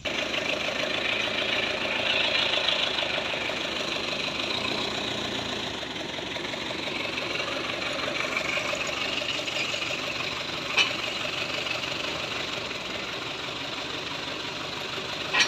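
Truck engine running steadily with a clattering idle, with a single sharp click about eleven seconds in and another at the end.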